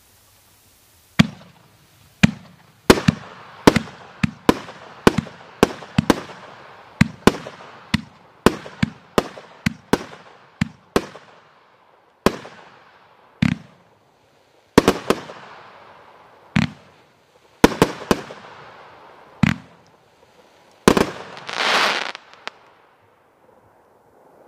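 The Chasing Booty 500-gram firework cake firing: a string of sharp shots and aerial break reports, about one to two a second, each trailing off, starting about a second in. Near the end there is a loud rush of noise lasting about a second.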